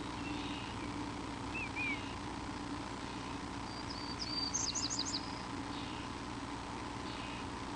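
Bird calling: a short two-part chirp about a second and a half in, then a quick run of high, sharp whistled notes around the middle, over a steady background hum.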